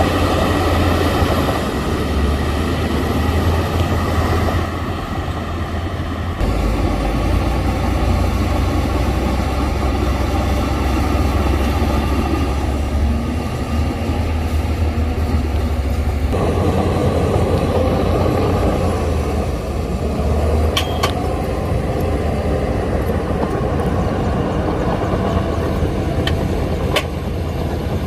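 Heavy diesel engine of earthmoving machinery running under changing load, its note shifting twice, with a few sharp metallic clanks in the second half.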